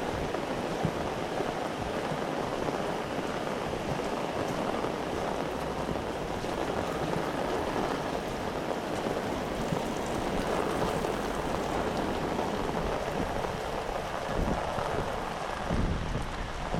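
Heavy rain pouring steadily, a dense even hiss, with wind gusts buffeting the microphone near the end.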